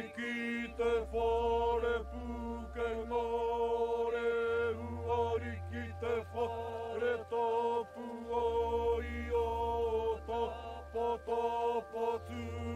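A voice chanting in long held notes with short breaks, over a low drone that shifts pitch every few seconds.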